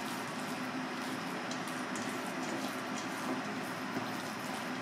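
Wooden spatula stirring a wet minced fish mixture in a stainless steel bowl: soft squelching with a few faint scrapes against the metal. A steady background hum runs underneath.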